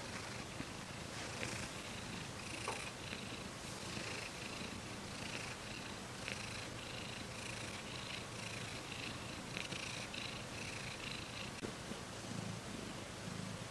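Domestic cat purring steadily, the purr swelling and fading about once a second.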